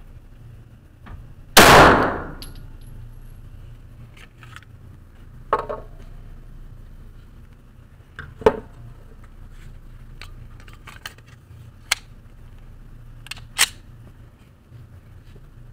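Pistol shots echoing down an indoor concrete firing range: one very loud shot about a second and a half in with a long ringing tail, then four quieter, sharper shots spread over the next twelve seconds, with faint clicks between them.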